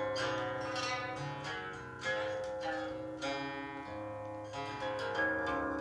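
Guqin (seven-string Chinese zither) played fast with both hands: a quick run of plucked notes with several strings ringing together, with new sharp attacks every second or so. Recorded through a laptop's built-in microphone.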